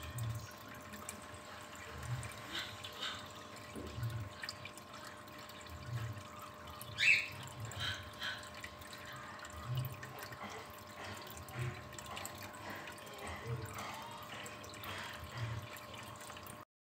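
Water trickling and dripping, with a steady faint hum and a soft low thump about every two seconds. One louder, sharper drip-like sound comes about seven seconds in.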